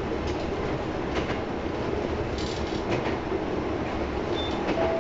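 Tsugaru Railway diesel railcar running along the line, heard from inside the passenger cabin: a steady rumble of engine and wheels, with a few clicks of the wheels over rail joints.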